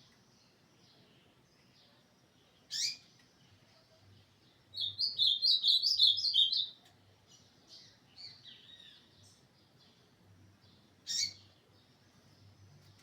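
Ultramarine grosbeak (azulão) singing: a fast two-second phrase of rapid high notes about five seconds in, with a single sharp call note before it and another near the end, and a few softer notes between.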